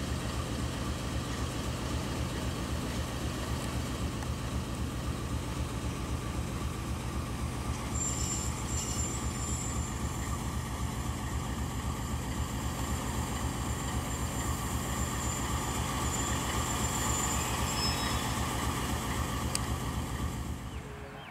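Diesel locomotive engine idling with a steady low throb. A thin high whine sits over it for about ten seconds from roughly eight seconds in, and the sound drops away just before the end.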